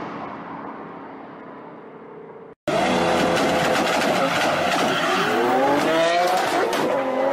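A car's engine sound fades away after it has passed. Then, after an abrupt cut, a blue Lamborghini Aventador's V12 and a red Volkswagen Polo sleeper launch hard off a drag-race start line, their engine notes rising in repeated sweeps as they pull through the gears, with a noisy, tyre-squeal edge.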